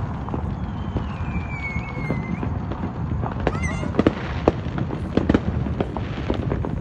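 Consumer aerial fireworks going off at a distance: a string of irregular sharp pops and crackles, with a high falling whistle in the first seconds and a quick rattling run in the middle.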